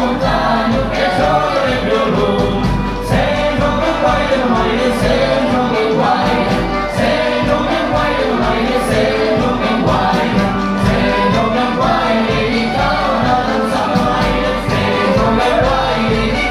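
Live Occitan folk song: a chorus of several voices singing together over fiddles and band accompaniment, with a steady held low note underneath.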